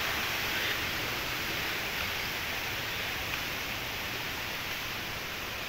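Steady rushing of a river with a small waterfall, an even wash of water noise that eases down a little.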